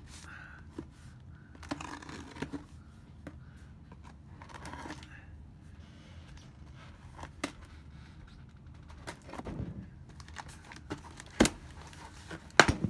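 Hands working at a large cardboard shipping box to open it: scattered scrapes, rustles and light tearing of cardboard and packing tape, with two sharp knocks about a second apart near the end.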